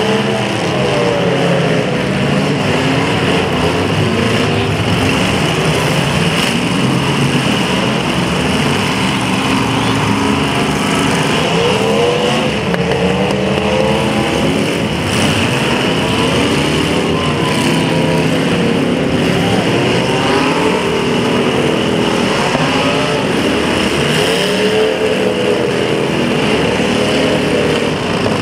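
Several demolition derby cars' engines running and revving at once, their pitches rising and falling over one another in a steady din.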